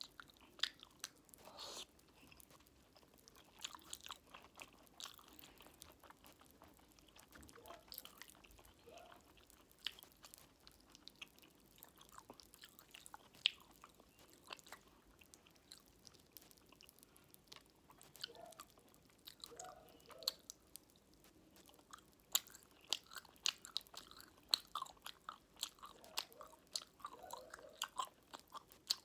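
Close-up mouth sounds of someone chewing fruit jelly with Coca-Cola popping candy: soft wet chewing broken by many small sharp crackles and clicks, which grow thicker near the end.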